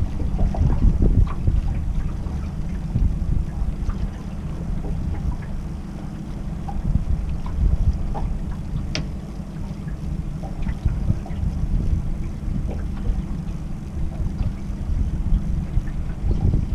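Wind rumbling on the microphone aboard a small fishing boat on choppy water, with a few light clicks and knocks, one sharper click about nine seconds in.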